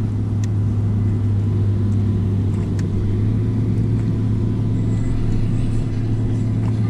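Steady low electric hum of a bass boat's bow-mounted trolling motor running at an even speed.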